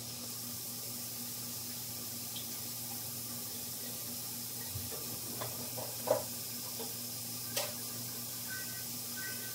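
Tap water running steadily into a bathroom sink, with a few small knocks and clicks at the basin, the loudest about six seconds in.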